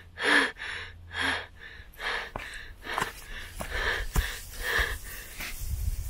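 Rhythmic heavy breathing, about one hissy breath a second. From about two seconds in, it is mixed with sharper crackles of dry leaves underfoot.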